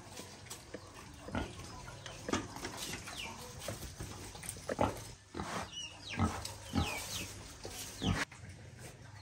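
Pigs grunting in short separate grunts, about seven over the span, with a few faint high chirps between them.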